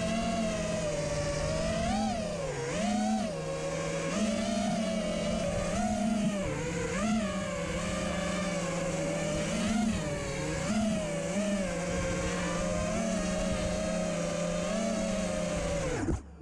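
Brushless motors and propellers of an FPV racing miniquad in flight, heard from its onboard camera. A steady buzzing whine swoops up in pitch with short throttle punches every second or two and cuts off suddenly near the end.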